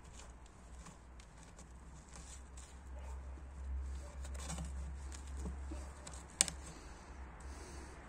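Small scraping and rustling of hands working gritty bonsai soil around a young maple's roots in a plastic tray, with one sharp click a little past six seconds in. A low steady hum runs underneath.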